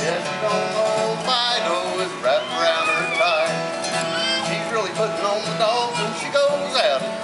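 Acoustic guitar strummed in a steady country rhythm, with a man's voice singing over it in wavering, gliding notes.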